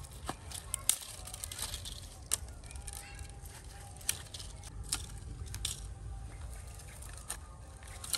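Dry sticks and twigs snapping and clattering as they are broken and gathered by hand into a pile, with sharp cracks at irregular moments, the loudest about a second in.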